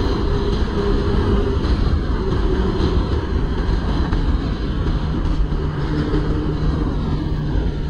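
Honda CB400 Super Four's inline-four engine running steadily while riding at road speed, under heavy wind rush on the microphone. A slowly falling tone comes through in the second half.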